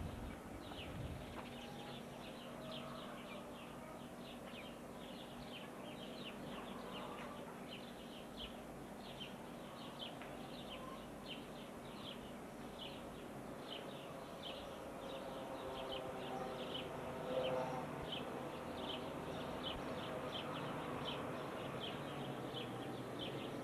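Outdoor animal chirping: short, evenly repeated chirps, about two a second, going on steadily throughout.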